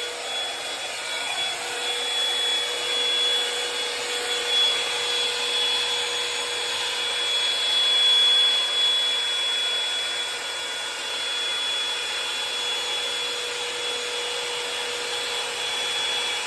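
Hot Tools Professional hair dryer running, a steady rush of air with a thin high-pitched motor whine, swelling and dipping slightly in loudness.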